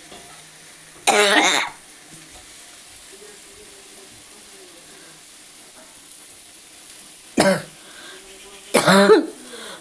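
A person coughing in short, loud bursts: one about a second in, then two more close together near the end.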